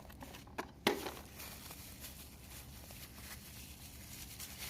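Brief handling noises, a couple of short clicks and a rustle, as a new capacitor and its packaging are handled, then faint background hiss.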